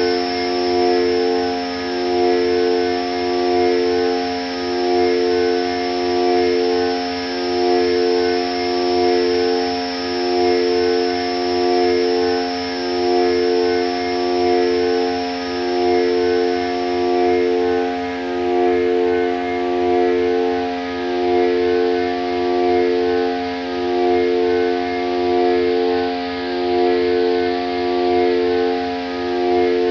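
Synthesizer drone music from Korg Volca synthesizers: a stack of held tones that swells and pulses about every two and a half seconds, with a high whistling tone fading out about two-thirds of the way through.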